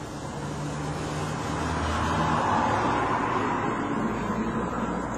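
A road vehicle going past, its noise swelling to a peak about halfway through and then fading.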